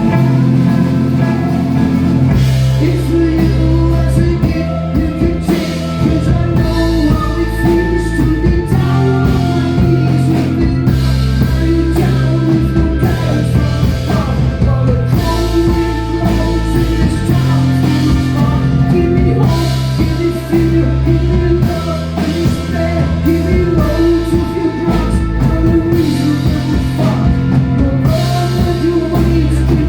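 Rock band playing live, with drum kit, electric guitar and bass carrying a repeating chord pattern.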